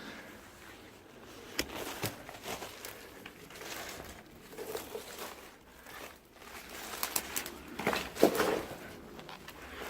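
Footsteps crunching and scuffing on debris, with irregular rustling and clicks, getting busier and louder near the end.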